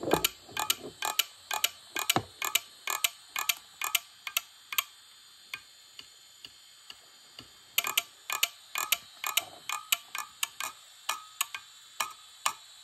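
An opened Western Digital Caviar 153AA hard drive clicking again and again, about three to four sharp, irregular clicks a second, with a sparser stretch in the middle. It is not working as it should.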